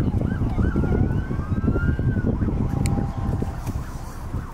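Emergency vehicle siren, switching from a fast yelp, about three rises a second, to a long rising wail and back to the yelp, over a steady low rumble. It grows quieter toward the end.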